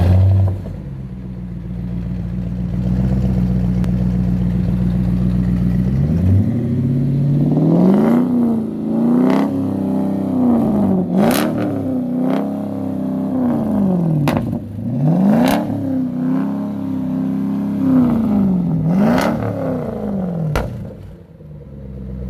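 Straight-piped Cadillac Northstar V8, mufflers and resonator deleted, idling steadily for about six seconds, then revved repeatedly. Sharp exhaust pops crack out as the revs fall, and it drops back to idle near the end.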